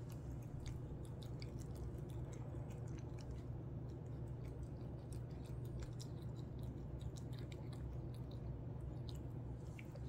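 A cat eating from a ceramic bowl, with many small, irregular chewing clicks over a steady low hum.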